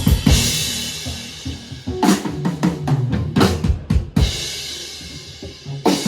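Drum kit and bass guitar playing jazz-funk together: busy drum hits and fills, densest from about two to four seconds in, with crash cymbals ringing out after the hits at the start and again about four seconds in, over low bass notes.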